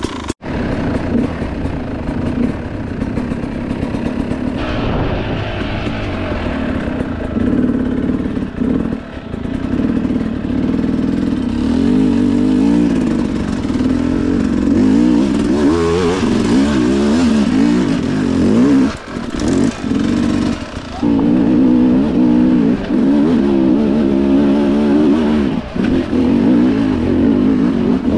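Dirt bike engine under way on a trail, its revs rising and falling constantly with the throttle, with a few brief drops off the throttle.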